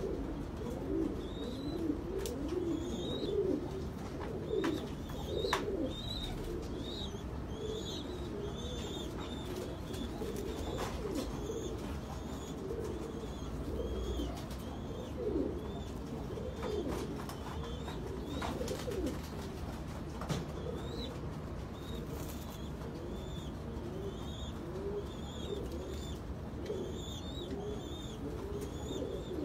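Domestic pigeons cooing without pause, several low coos overlapping one another, with a small bird's high chirps repeating about twice a second.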